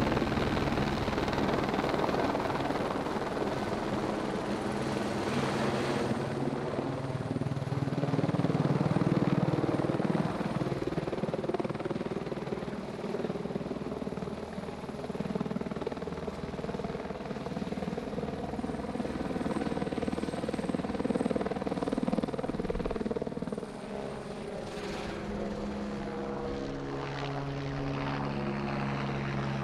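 A helicopter's rotor and engine running loud and steady while it flies a cow down in a sling slung from its cable. The loudness rises and falls without the noise ever stopping.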